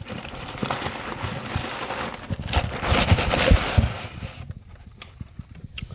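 Handling noise: crackling and rustling with many small clicks, loudest about three seconds in, dying down after about four seconds.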